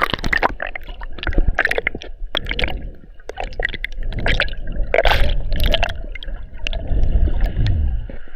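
Sea water splashing and gurgling around a waterproof action camera's plastic housing while swimming, in irregular sloshes with a heavy low rumble.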